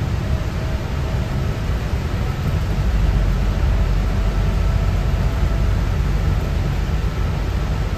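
Steady in-cabin road noise from a vehicle driving in heavy rain: a low engine and tyre rumble on the wet road under a hiss of rain and spray. The rumble grows heavier a little after two seconds in.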